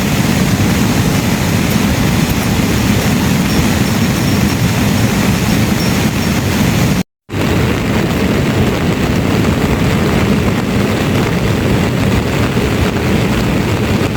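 Heavy rain falling hard, a loud, steady rush with a deep low rumble, broken by a brief silent gap about halfway.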